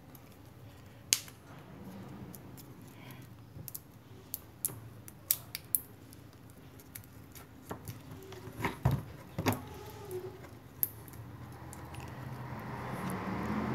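Enamelled copper magnet-wire coils being pushed and arranged into the slots of an electric motor's steel stator by hand: scattered light clicks and ticks of wire against the core and slot insulation. A faint noise swells near the end.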